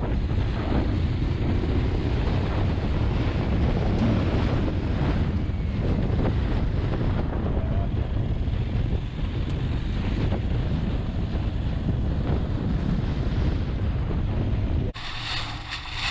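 Strong wind buffeting the microphone of a moving motorcycle rider, a steady low rushing that covers everything else. It drops off abruptly near the end.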